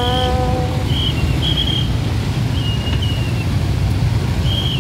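Steady low rumble of many idling motorcycles and road traffic. A horn sounds for under a second at the start, and short high chirps come and go.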